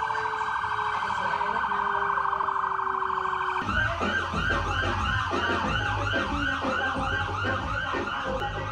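Police sirens from a passing procession: first a fast warbling siren, then from about four seconds in a siren sweeping up and down two or three times a second over a low rumble.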